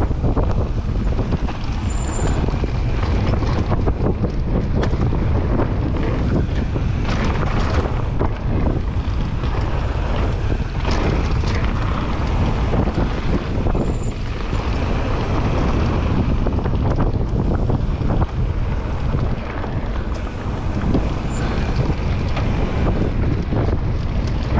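Wind noise buffeting the microphone as a mountain bike rolls fast down a dirt and gravel trail, with tyre noise and frequent small knocks and rattles from the bike over rough ground.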